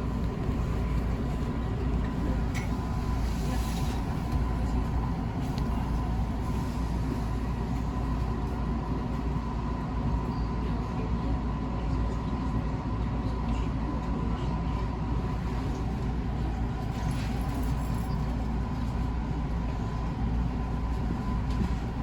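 Running noise of a JR West 221-series electric train heard from on board: a steady low rumble of wheels on rail with a thin, faint steady whine above it. A few light clatters come about three seconds in and again about two thirds of the way through.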